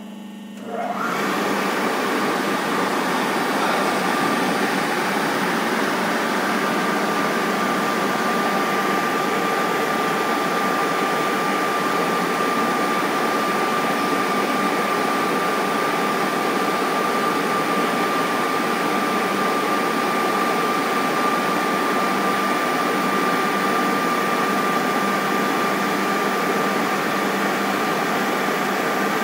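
Paper pile turner's air blower switching on about a second in and running steadily: a loud, even rushing of air with a steady whine on top.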